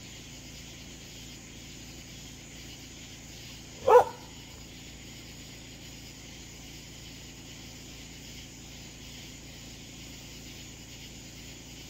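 A dog barks once, a single short bark about four seconds in, over a steady faint background hiss.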